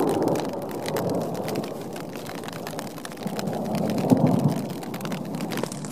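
Thunderstorm: rain falling in dense sharp drop hits, with rolling thunder swelling at the start and rumbling again more loudly about three to four seconds in.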